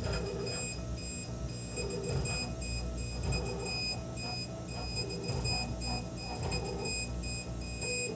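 K40 CO2 laser cutter's stepper motors driving the laser head along a cut. They give high steady tones that break off and resume in short dashes as the head moves, over a low steady hum.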